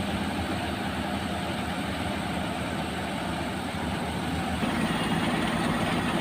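Heavy road-construction vehicle engines running steadily, with a rumble that grows a little louder and deeper about four and a half seconds in.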